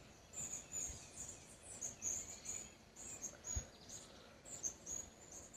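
Jungle wildlife chirping: short, high-pitched chirps repeating about twice a second over a faint, quiet background.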